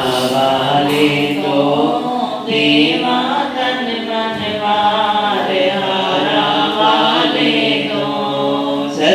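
Voices chanting a Hindi devotional bhajan together in a steady, continuous melodic chant.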